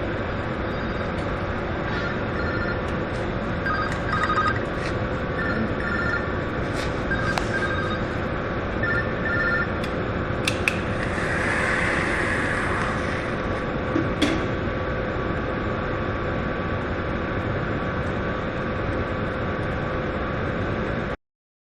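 Steady industrial plant background noise, with short paired electronic beeps repeating for several seconds early on. About eleven seconds in, after a few clicks, a brief fizzing hiss lasts a couple of seconds: the exothermic weld charge in the graphite mold flaring as it burns.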